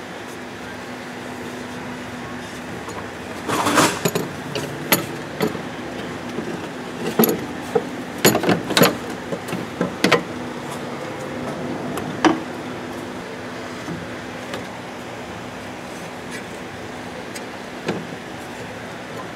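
Metal clinks and knocks of a Garrett turbocharger being handled and set into place in a diesel engine bay, in a cluster of sharp knocks over several seconds and one more near the end. A steady background hum runs underneath.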